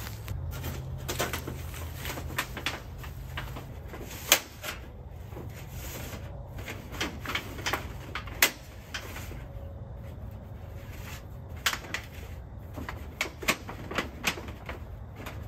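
Irregular sharp metal clicks and light knocks as the sections of a titanium stovepipe are handled and fitted onto a small titanium wood stove, the loudest about four and eight seconds in and a quick cluster near the end.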